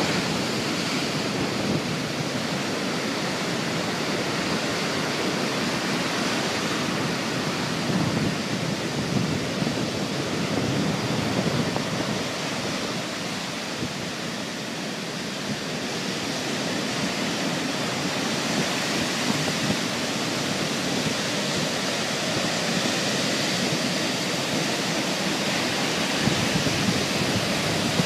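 Storm-surge surf: rough waves breaking and foaming water washing up over a sandy beach in a continuous rushing noise that swells and eases.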